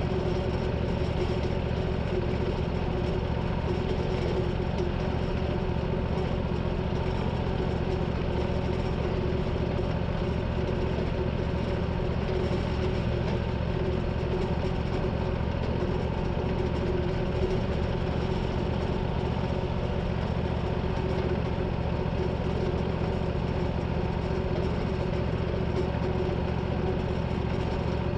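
A sawmill's gasoline engine running steadily at an even pitch and level as boards are milled.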